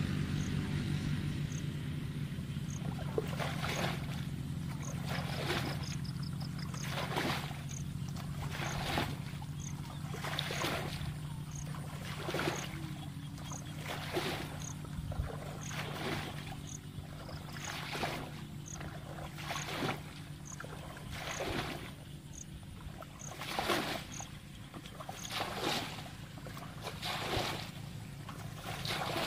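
Green plastic bucket scooping muddy water and flinging it out, a splash about every second and a half, as a shallow pool is bailed dry by hand. A steady low hum runs underneath.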